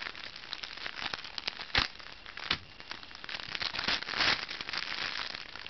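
Plastic packaging crinkling and crackling as card-game decks are handled and unwrapped, with a sharp click about two seconds in and a louder rustle near the end.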